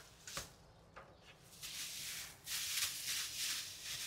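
Thin clear plastic bag crinkling and rustling as it is handled around seed pots, louder from about halfway in, after a few light clicks near the start.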